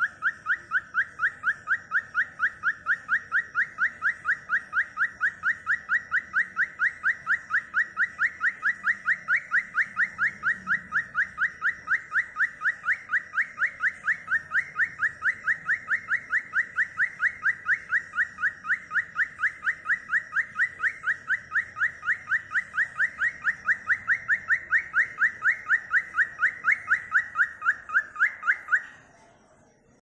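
Cockatiel calling: a short rising chirp repeated evenly, about three to four times a second, stopping abruptly near the end.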